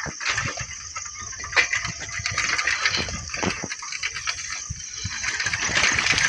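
A bicycle rattling and knocking as it is ridden over a bumpy, muddy dirt track, with irregular clicks and low thumps and wind rumbling on the microphone, over a steady high hiss.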